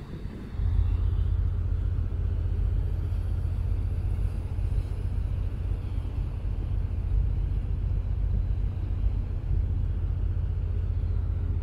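Steady low rumble of a boat under way, stepping up in level about a second in.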